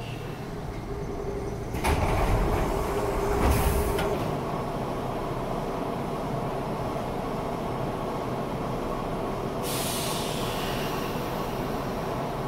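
Doors of a Nankai 6200-series train opening at a station: a sudden loud bang with a burst of hissing air about two seconds in, and a second hiss of air a second and a half later. The stopped train then hums steadily, and another hiss of air starts near the end.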